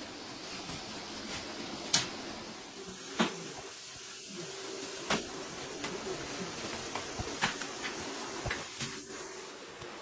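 Workshop handling of used tyres and plastic packing wrap: several sharp knocks and clicks, the loudest about two seconds in, over a steady background with a faint hum.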